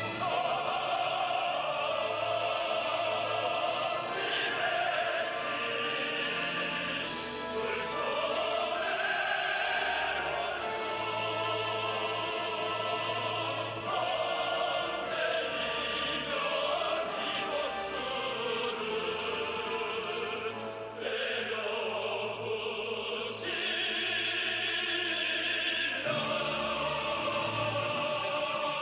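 Operatic singing over an orchestra: a voice holding long, wavering notes in slow melodic phrases, with accompanying instruments throughout.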